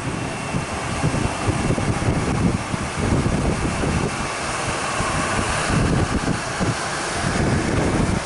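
Boeing 737 airliner's jet engines running at taxi power, with a faint high whine, under a heavy, gusty rumble of wind on the microphone.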